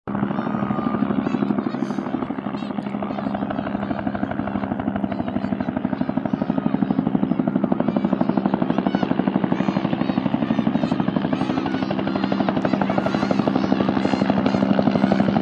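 Air ambulance helicopter approaching to land: the fast, even beat of its rotor over a steady engine hum, growing gradually louder as it nears.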